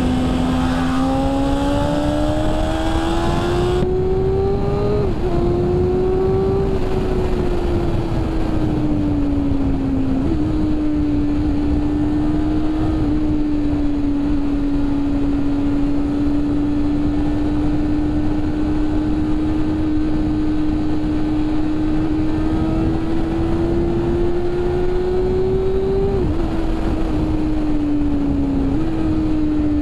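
BMW S1000RR superbike's inline-four engine running under way at a steady cruise, its note slowly rising and falling with a few brief breaks, over loud wind rush on the microphone.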